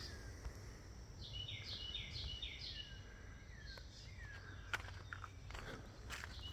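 A songbird singing a quick series of about six downward-slurred whistled notes, with a few light clicks near the end over a low outdoor rumble.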